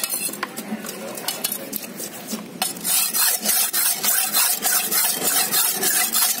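A long steel knife blade is sharpened on a flat sharpening stone, after a few light knocks as the stone is set down. From about halfway through, the blade makes rhythmic rasping scrapes on the stone, about two strokes a second.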